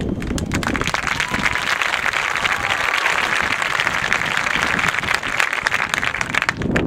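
Crowd applauding, a dense patter of clapping that stops near the end.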